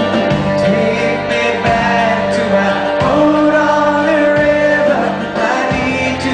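Live band music: a male voice singing lead over a mandolin, with steady low notes underneath.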